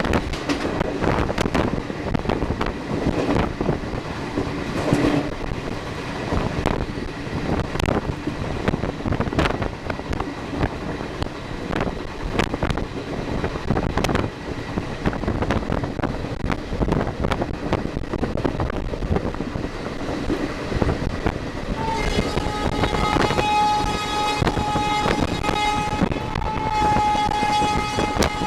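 Express train running fast on the track, a rapid clatter of wheels over the rails, then near the end the WAP-4 electric locomotive's sustained horn sounds on several notes at once over the rail noise.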